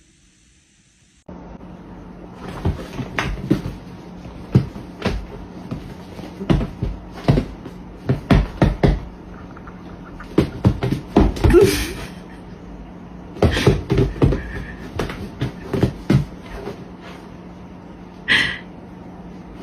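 A run of irregular knocks and thumps over a steady low hum.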